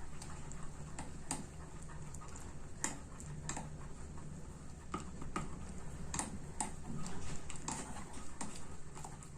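A utensil stirring a thickening lemon cream in a pot, scraping and clicking irregularly against the pot's sides and bottom, over a steady low hum.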